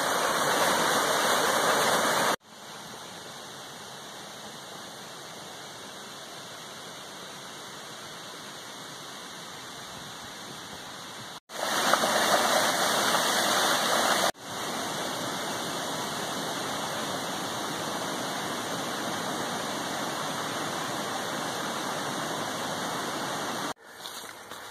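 A small rocky woodland stream cascading over mossy boulders: steady rushing water. Its loudness jumps abruptly several times between louder and softer stretches, and it is quieter and uneven near the end.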